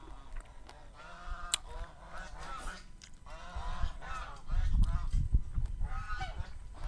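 Domestic geese honking several times in a series of short nasal calls. Between them, about two-thirds of the way through, come a run of loud low thumps, the loudest sound here.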